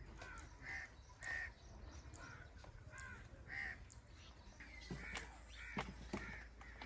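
Crows cawing again and again with short, clipped calls. A couple of sharp knocks come near the end.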